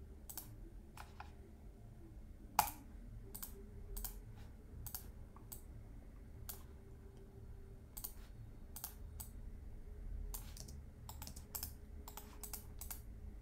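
Scattered clicks of a computer mouse and keyboard at a desk. One click about two and a half seconds in is louder, and a quicker run of clicks comes near the end.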